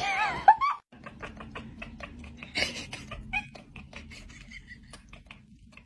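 Cat chattering: a quick run of short clicks and brief high chirps that thins out towards the end. It is preceded in the first second by a loud, wavering, high-pitched call.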